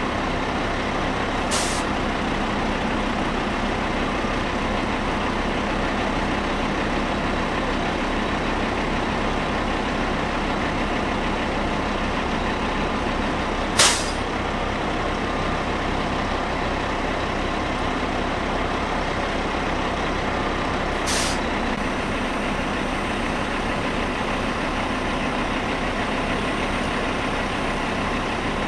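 Heavy diesel machinery running steadily as a crane holds a helicopter airframe slung over a truck's trailer, with three short sharp bursts, the loudest about halfway through.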